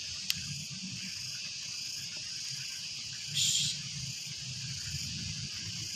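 Steady high insect drone, a chorus of crickets or similar field insects, with a brief louder rasp about three and a half seconds in.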